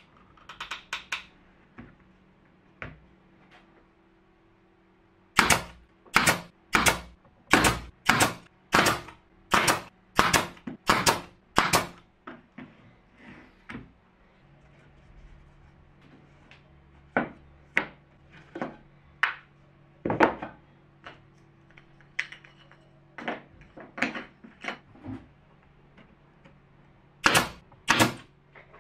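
Pneumatic brad nailer firing a fast run of about a dozen shots, roughly two a second, then a few more widely spaced shots and a quick pair near the end.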